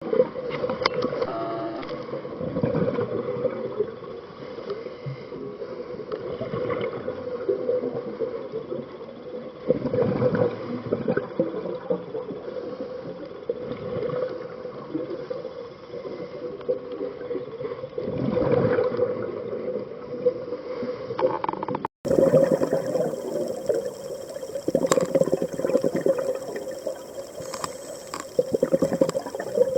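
Underwater sound of a scuba diver breathing on a regulator: exhaled bubbles gurgle up about every eight seconds over a steady hum. Near the end the sound cuts out for an instant and comes back brighter, with a fine crackle.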